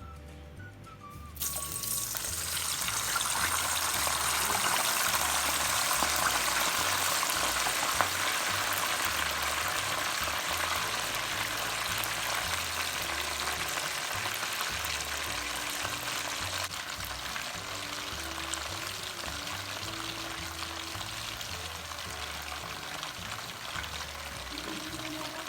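Battered food dropped into hot oil and deep-frying: a loud sizzle starts suddenly about a second in, is strongest for a few seconds, then slowly settles to a steadier bubbling hiss. Background music with a steady beat plays under it.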